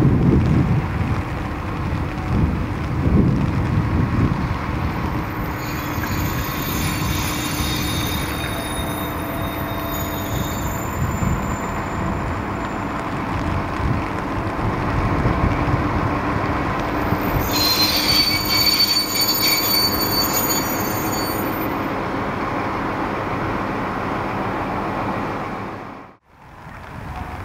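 Diesel locomotive hauling a freight train of tank wagons slowly past, with a steady low engine and rail rumble. Metal wheels squeal against the rails in two spells, about five seconds in and again past the middle. The sound cuts out briefly near the end.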